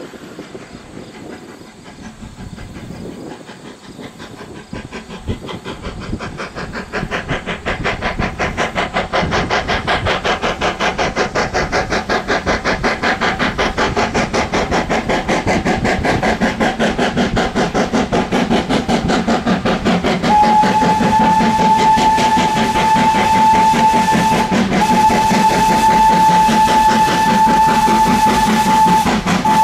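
Steam locomotive working hard up a grade, its exhaust chuffing in a fast, even beat that grows louder as it approaches. About two-thirds of the way in its steam whistle sounds two long blasts, then a short one and the start of another long one near the end, the grade-crossing whistle signal.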